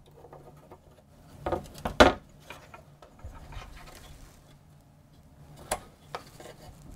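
A SIMM memory stick being worked into its socket on a Macintosh LC 575 motherboard: rubbing and handling of the module, with a sharp click about two seconds in and another smaller click near the end as the socket clips catch.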